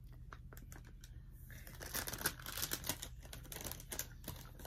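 Hard tamarind candy being bitten and cracked between the teeth: a run of sharp crackling clicks, thickest and loudest in the middle.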